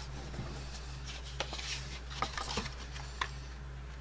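Light rustles and soft taps of cardstock box pieces being handled and pressed together on a cutting mat, a few faint ticks scattered through, over a steady low hum.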